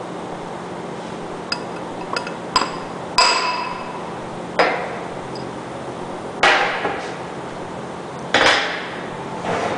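Four-pound hammer striking a punch against the stuffing box of a Dragon 250 centrifugal pump, driving the stuffing box loose from the back of the pump. There are about five separate blows, one to two seconds apart, some with a short metallic ring.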